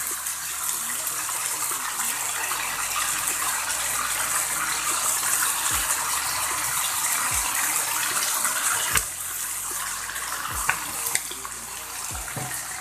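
Snail meat stir-frying in a pan, sizzling steadily just after sweet soy sauce has gone in, with a few sharp knocks of the spatula against the pan.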